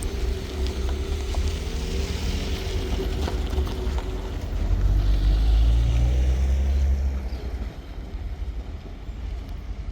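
Freight train's diesel locomotive engine running with a deep low rumble, swelling louder for a couple of seconds around the middle, then easing off.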